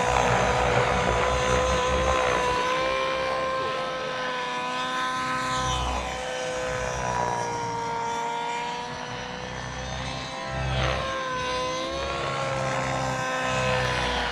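Remote-control model aircraft flying, its motor a steady pitched drone that wavers slightly, with sweeping pitch changes twice as it passes by, around halfway and again near the end.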